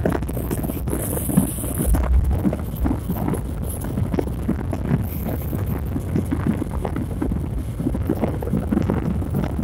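Wind buffeting the microphone outdoors: a continuous low rumble broken by irregular short thumps.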